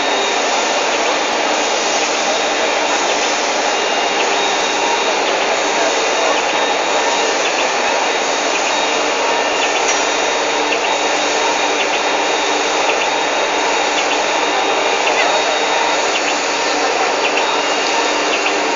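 Loud, steady din of a busy exhibition hall: an even wash of noise with indistinct voices mixed in.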